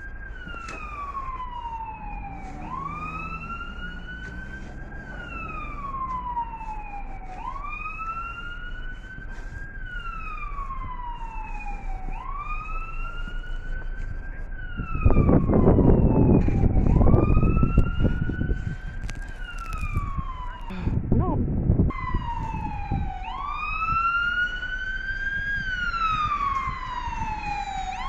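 Emergency vehicle siren wailing in steady rising-and-falling cycles, about one every three seconds, each a quick rise then a slower fall. About halfway through, a loud low rumble covers the lower sounds for several seconds.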